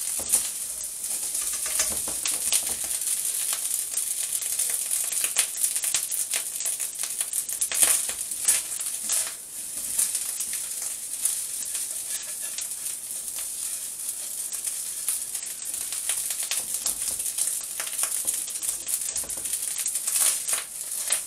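Rice and corned beef sizzling in hot oil in a wok while a spatula stirs and scrapes it around, with a steady hiss and irregular scraping and rattling of the grains against the pan.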